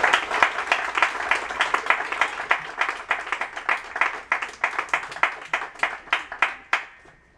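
A small group of people applauding. The clapping thins out to a few scattered claps and stops near the end.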